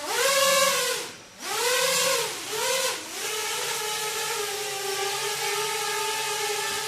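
Brushless motors of a 7-inch FPV quadcopter spinning, their whine rising and falling in three quick throttle blips, then holding a steady pitch from about three seconds in.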